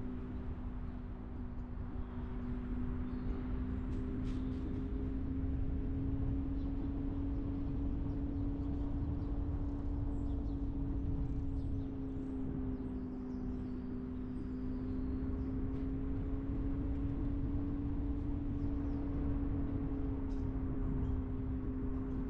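Car driving along, with a steady engine drone that drifts slightly up and down in pitch over a low rumble of road noise.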